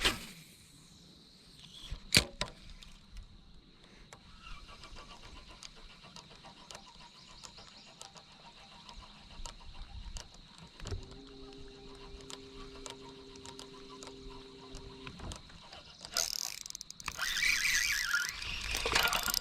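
A sharp click about two seconds in. Midway, a boat's electric trolling motor hums steadily for about four seconds, then stops. Near the end comes loud splashing of water as a small hooked bass is brought to the boat.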